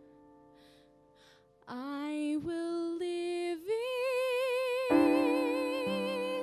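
A woman singing long held notes with vibrato, gliding up into a higher held note, accompanied by a Yamaha electronic keyboard. A keyboard chord fades at first, the voice comes in a little under two seconds in, and a new keyboard chord joins under her about five seconds in.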